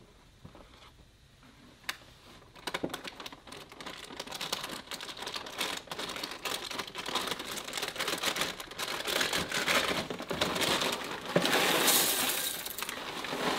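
Dry cereal being poured into a bowl: a patter of small pieces clicking into it. It starts about two and a half seconds in and grows denser and louder, loudest just before the end.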